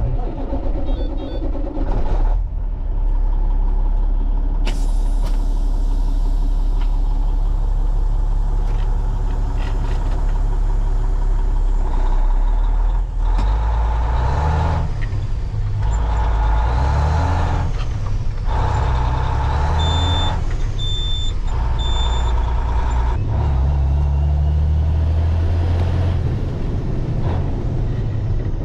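Heavy diesel farm machinery running steadily, its engine note stepping up and down with load. Three short electronic beeps sound about twenty seconds in.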